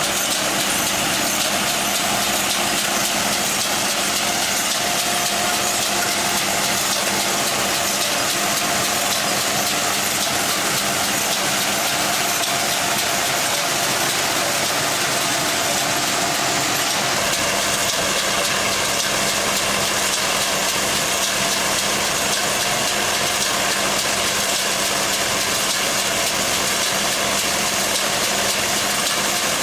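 An engine running steadily at an even speed, its tone changing slightly a little past halfway.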